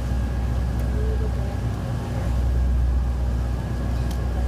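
Tour boat's engine running with a steady low drone, heard from aboard.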